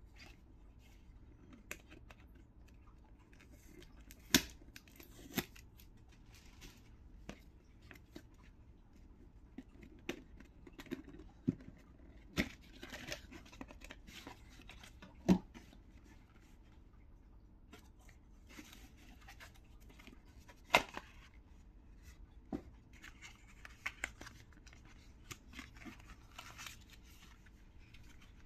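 Cardboard and paper packaging being opened by hand: scattered sharp taps and snaps of cardboard, a few of them much louder than the rest, with stretches of paper rustling and tearing.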